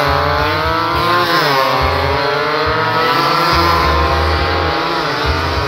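Racing motorcycle engines revving hard as the bikes run through a street bend, their pitch rising and falling repeatedly as the riders work the throttle.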